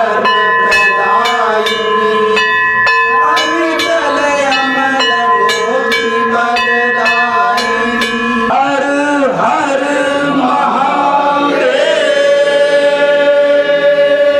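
Aarti bells rung in quick, even strikes, about three a second, over a steady ringing hum. About eight seconds in, the bells stop and a group of voices takes up a sung chant.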